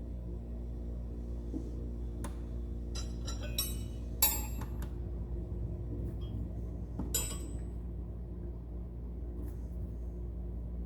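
Craftsman steel wrenches clinking against each other and the drawer as they are set into an organizer one by one. There are a handful of short metallic clinks, the loudest about four seconds in, over a steady low hum.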